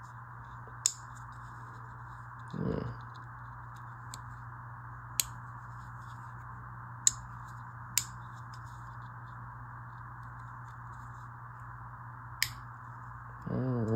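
Tools of a titanium-scaled 93 mm Victorinox Swiss Army knife snapping open and shut against the backspring: about six sharp clicks at irregular intervals, the loudest about seven seconds in, over a low steady hiss.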